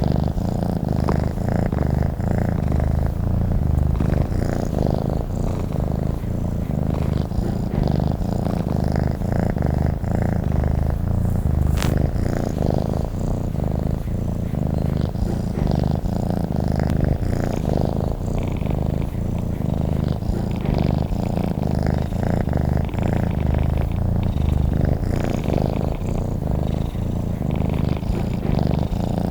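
Domestic cat purring steadily, a continuous low pulsing rumble. A single short click sounds about twelve seconds in.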